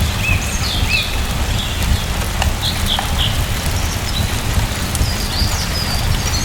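Steady rain falling over a deep low rumble, with a small bird chirping in short high notes, several in quick groups.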